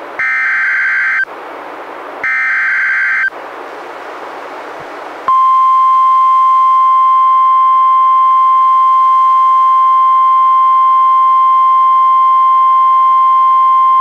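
NOAA Weather Radio EAS activation for a Severe Thunderstorm Warning, played through a Reecom R-1630 weather radio. It opens with two of the three one-second SAME data bursts of the digital header, with static hiss between them. About five seconds in, the steady 1050 Hz warning alert tone starts and holds.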